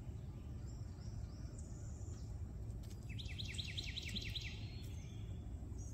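Outdoor ambience with a steady low rumble. About halfway through, a bird sings a quick trill of about ten evenly spaced high chirps, with fainter bird calls earlier on.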